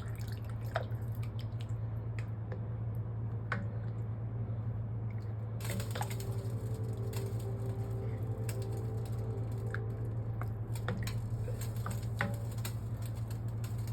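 A spoon stirring broth in a soup pot: soft sloshing with scattered light clicks of the spoon against the pot, over a steady low hum.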